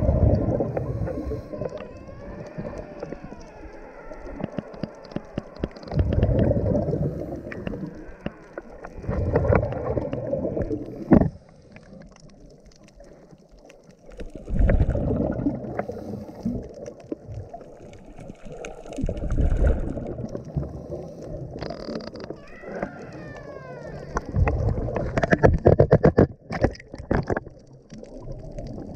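Underwater scuba breathing: a diver's regulator releasing bursts of exhaled bubbles that rumble every few seconds, with scattered sharp clicks that crowd together near the end.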